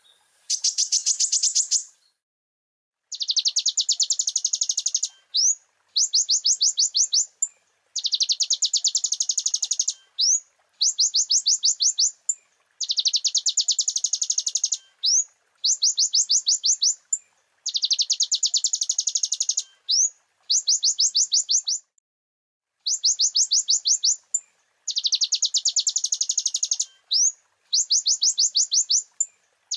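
Brown-throated sunbird (konin) singing: high, rapid trills of quick repeated notes, each trill lasting about two seconds. The trills repeat every two to three seconds, often with a single quick upslurred note in between.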